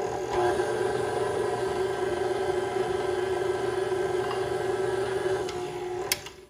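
Electric stand mixer running at a steady speed, its motor humming as the beater works a soft, sticky sweet yeast dough in a glass bowl. There is a sharp click about six seconds in, and the sound briefly dips.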